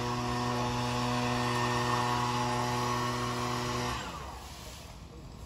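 A small gasoline engine on yard power equipment runs at a steady speed, then shuts off about four seconds in, its pitch dropping as it winds down.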